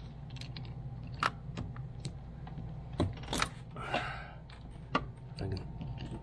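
Pliers clicking and tapping against the metal A/C expansion valve and its fittings as it is worked loose, with a short scraping rub about four seconds in, over a steady low hum.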